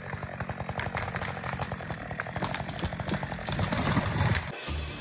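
Chainsaw running with a rapid, crackling rattle, which cuts off suddenly near the end.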